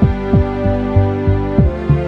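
Background music: a held synth chord over a low drum that thuds about three times a second, each hit dropping in pitch.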